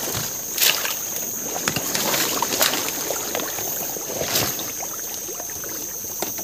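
Water sloshing and splashing as a person wades through a shallow, plant-choked swamp stream, with three sharper splashes about two seconds apart.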